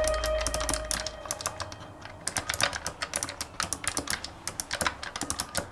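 Fast typing on a Keychron K1 low-profile mechanical keyboard: a dense, uneven stream of key clicks. A held music note fades out in the first second.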